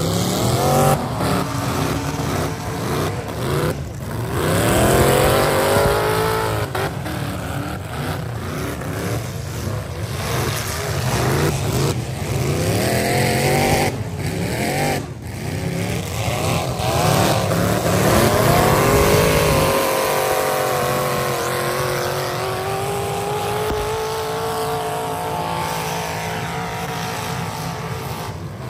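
Economy-class V8 demolition derby cars running and revving hard, engine pitch climbing again and again as they accelerate into each other, settling into a steadier engine drone over the last part.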